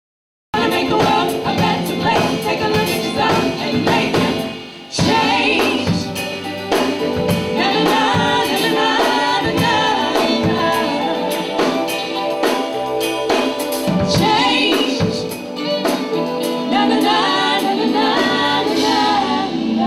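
Live band music with several women singing together into microphones, backed by drum kit, keyboard, violin and electric bass. It starts abruptly about half a second in.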